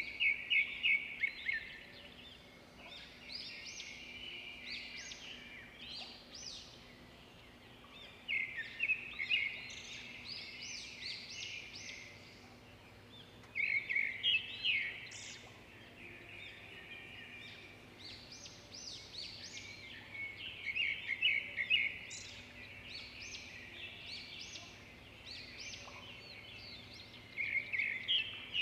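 A songbird singing, with repeated phrases of quick high chirps and trills in bursts every few seconds.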